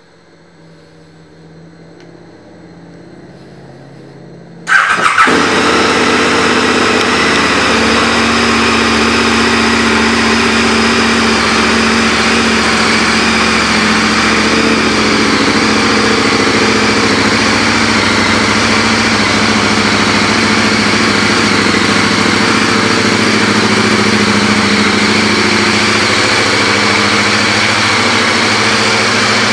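KTM 1290 Super Adventure's 1301 cc V-twin engine starting about five seconds in with a brief loud burst, then idling steadily.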